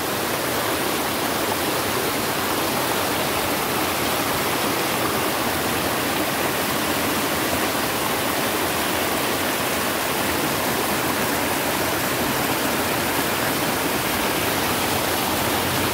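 A creek in flood after heavy overnight rain, its muddy water rushing and cascading over rocks in a steady, loud wash of noise.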